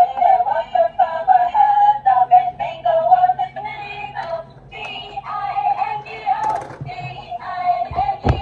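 Tinny electronic melody with synthetic singing playing from a battery-powered toy Airbus airliner's built-in speaker, with a thump near the end.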